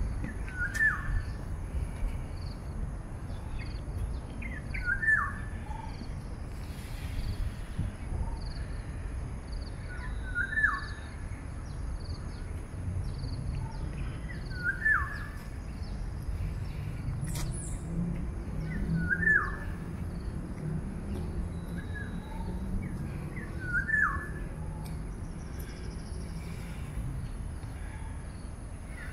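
A bird calling over and over, a short downward-sliding note about every four to five seconds, six times, with fainter chirps from other birds among the calls. Under it runs a steady low rumble of background noise.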